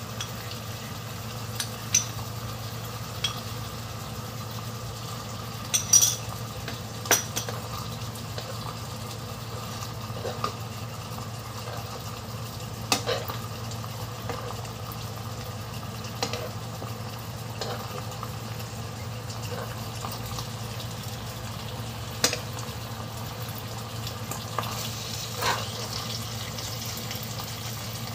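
Black bean sauce simmering and sizzling in a frying pan as cornstarch slurry is stirred in to thicken it, with a metal spoon stirring and basting. Scattered sharp clinks of the spoon on the pan and bowl, the loudest about six and seven seconds in.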